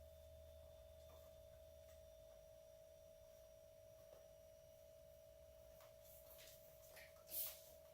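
Near silence: a faint steady tone hums underneath, and a few light clicks and rustles come near the end, the loudest about a second before the end.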